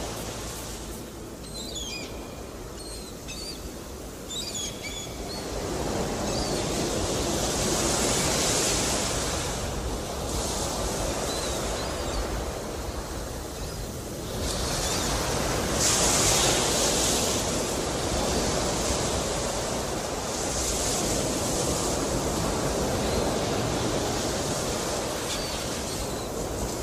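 Ocean surf: waves washing in and drawing back, the rush swelling and fading every several seconds. A few short high chirps sound in the first few seconds.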